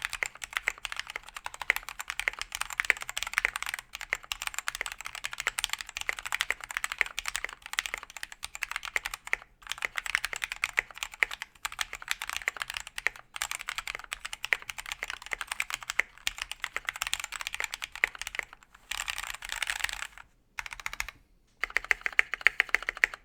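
Continuous fast typing on a GamaKay K77 hot-swap mechanical keyboard, after foam padding and dielectric-greased stabilizer wires. There are two short pauses near the end before the typing picks up again.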